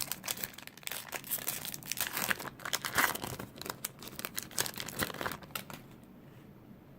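Wrapper of a baseball card pack crinkling and tearing as it is opened by hand, stopping about six seconds in.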